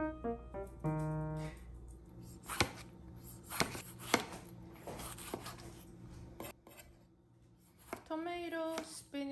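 Piano music for the first second and a half, then a chef's knife slicing through tomatoes on a cutting board: a series of separate cuts, each ending in a sharp tap as the blade meets the board.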